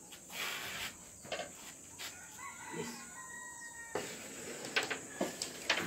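Chickens and a rooster crowing in the background, with a few sharp clicks in the second half from pool balls being struck and knocking together.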